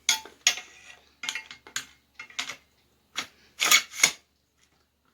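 Parts of a new shotgun being handled and fitted together: a string of short metallic clicks and clacks. The loudest two come about three and a half to four seconds in.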